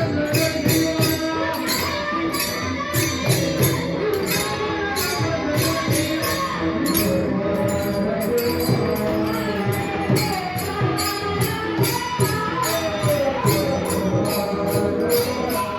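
Kirtan devotional music: voices singing a bhajan over steady held tones, with metal hand cymbals jingling in a quick, even beat of about three strikes a second and drum strokes underneath.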